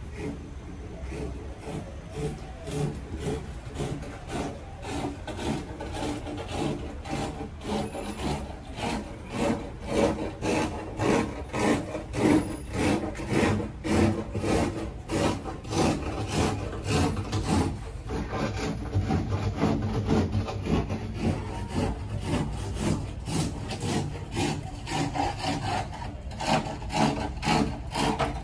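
Rhythmic scraping strokes, about three a second, growing louder about ten seconds in.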